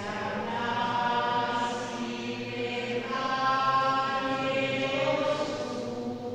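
Slow, chant-like church music in long held chords, moving to a new chord about three seconds in.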